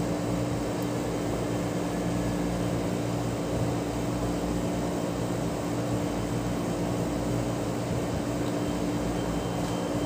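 Outdoor unit of a 5-ton ductable air conditioner running steadily during R22 gas charging: an even compressor hum with a steady tone under the fan's air noise.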